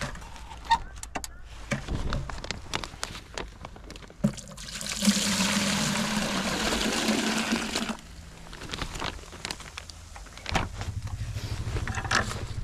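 Maple sap pouring from a blue plastic sap bag into a plastic bucket in a steady stream lasting about four seconds, starting about four seconds in. Before it come rustling and clicks as the bag is handled.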